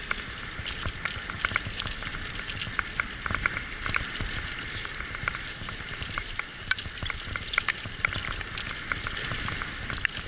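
A dog team's rig rolling over a rough, gritty trail: a steady crackling crunch, dotted with many small clicks and ticks.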